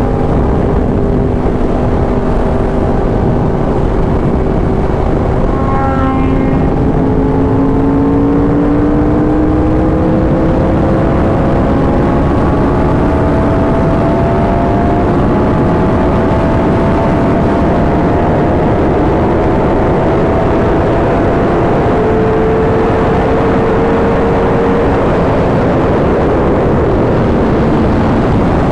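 Yamaha R1's crossplane inline-four running through an SC Project exhaust while the bike cruises, its engine note rising slowly over stretches of several seconds, with wind and road noise underneath.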